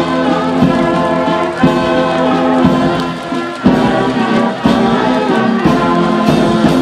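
Brass band playing a tune in held notes, with a beat about once a second.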